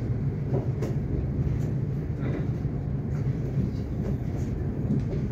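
Electric suburban train running, heard from inside the carriage: a steady low rumble of wheels on track with a few light clicks.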